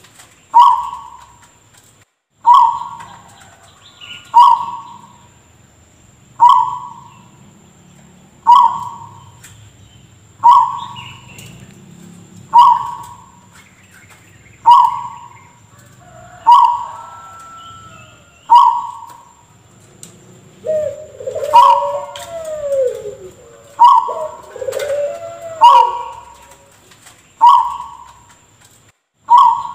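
Zebra dove (perkutut) giving a short, cough-like call about every two seconds, each note starting sharply and fading fast. Other curving, gliding bird calls join in about two-thirds of the way through.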